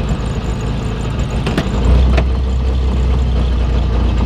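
Trabant 601's two-stroke two-cylinder engine idling, heard from inside the small cabin. About two seconds in, the engine gets louder and deeper, with a couple of sharp clicks just before.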